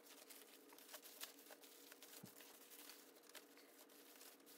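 Faint crinkling and rustling of a thin plastic tablecloth being unfolded by hand: a scatter of small irregular crackles over a faint steady hum.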